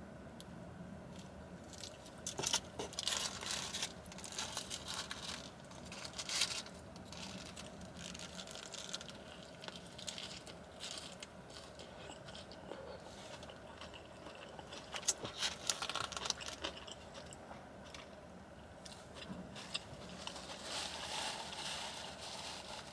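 Close-up eating sounds of a person biting and chewing an In-N-Out cheeseburger, wet crunching and smacking that come in irregular spells, with louder crunches now and then.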